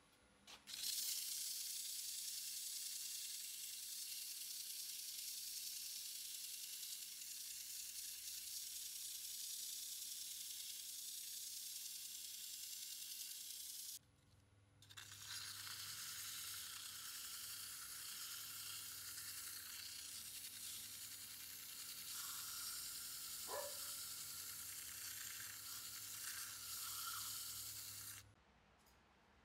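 Ash wood turning on a wood lathe while being worked, a steady hiss that starts just under a second in, breaks off briefly about halfway and then runs on, stopping shortly before the end.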